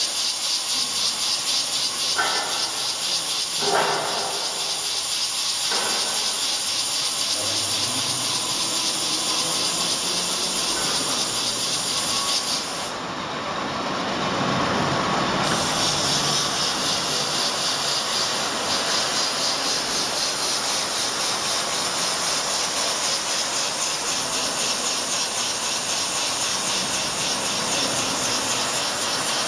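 Muhr & Bender Mubea-Matic CNC plate drilling machine running with a steady hiss, which thins out for a couple of seconds about halfway through.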